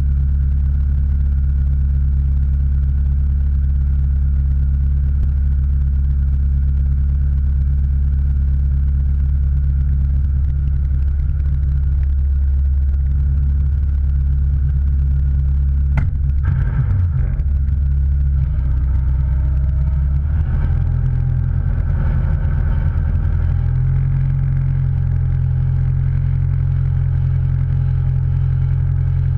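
Motor vehicle running with a steady low drone. There is a sharp click about sixteen seconds in, and the drone shifts in pitch around then and again a few seconds later.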